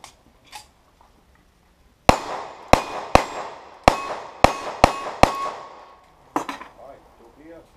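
Seven gunshots in quick succession about half a second apart, starting about two seconds in, from a cowboy action shooting stage; several are followed by a short ringing tone, typical of steel targets being hit. A few weaker knocks follow near the end.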